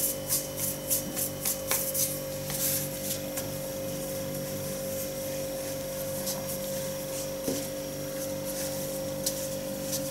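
Starch-dusted palms rolling a ball of sweet red bean paste (anko), a rhythmic rubbing of about three strokes a second that stops about two seconds in, followed by fainter brushing of a hand over the starch-covered mat. A steady low hum runs underneath.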